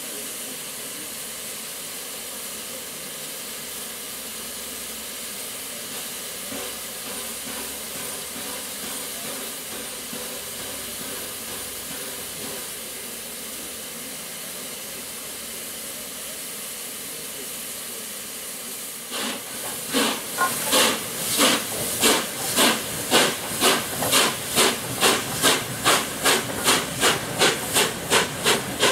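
Peppercorn A1 Pacific steam locomotive 60163 Tornado standing with a steady hiss of escaping steam. About two-thirds of the way in it sets off, and sharp chimney exhaust beats come quicker as it gets under way.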